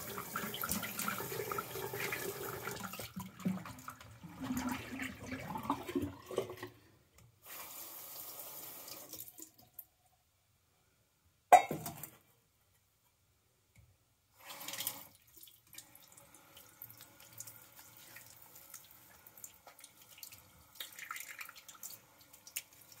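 Bathroom sink's cold tap running, with water splashing as a face is rinsed of shaving lather. The splashing drops away after about six seconds, with a single sharp knock about halfway through, then comes back fainter.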